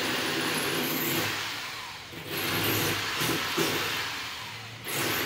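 Cordless drill boring into a wall. It runs in a long stretch, stops briefly about two seconds in, runs again and tails off, then starts once more near the end.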